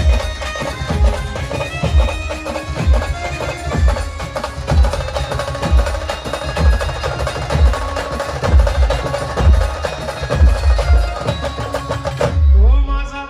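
Brass band playing an instrumental interlude: held reedy melody lines over a deep bass drum beat about once a second. The music cuts off sharply near the end.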